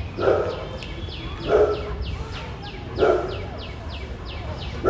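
Boxer dog panting steadily, about three short breaths a second, with a stronger breath sound about every second and a half.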